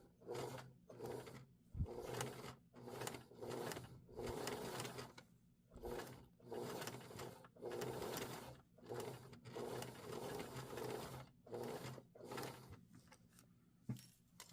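Domestic sewing machine fitted with a zipper foot, stitching slowly in short start-and-stop runs, about a dozen bursts with brief pauses between, as it sews the zipper into denim. A couple of sharp clicks stand out, about two seconds in and near the end.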